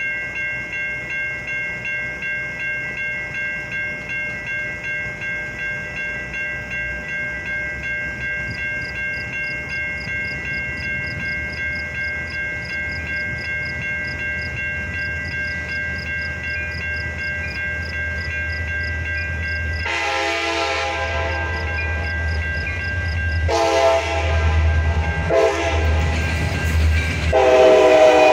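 Railroad crossing bells ringing steadily at about two strokes a second while the rumble of an approaching Metra commuter train grows. About two-thirds of the way in, the train's horn sounds the grade-crossing signal: two long blasts, a short one and a final long one as it reaches the crossing.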